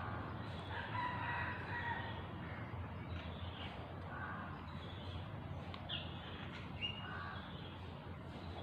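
Birds calling in the background: one long pitched call about a second in, then several shorter calls, over a steady low hum.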